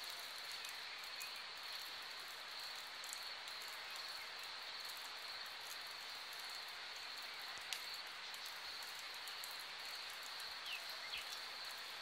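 Crickets chirring steadily on one high pitch, with a single click about two-thirds of the way through and a few short bird chirps near the end.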